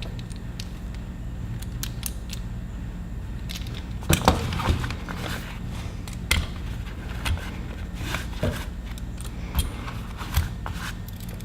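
Hand tools and their packaging being handled: scattered clicks, taps and rustles, with a cluster of louder knocks about four seconds in, over a steady low hum.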